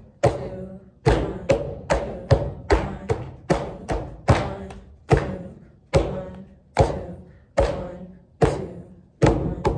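Hands patting on the thighs over jeans, tapping out a rhythm-reading exercise. The sharp pats come in an even beat about 0.4 s apart, and about five seconds in they change to one every 0.8 s or so.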